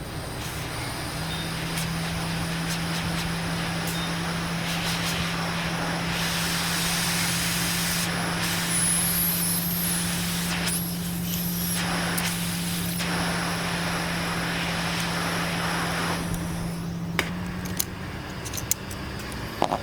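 Steady rush of blowing air with a low, even hum underneath, running until about three seconds before the end. A few sharp clicks follow.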